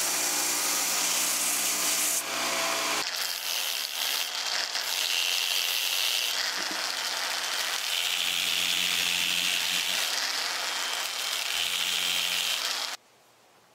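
A belt sander runs with a steady hum while a wooden ladle blank is pressed against the belt. About three seconds in, this gives way to a handheld disc sander sanding the ladle's bowl, its noise swelling and easing as the disc is pressed on. It cuts off near the end.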